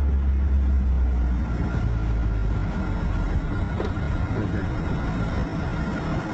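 Engine and road noise of a moving car heard from inside its cabin: a deep drone that eases off about a second and a half in, then a steady rumble with a faint high whine.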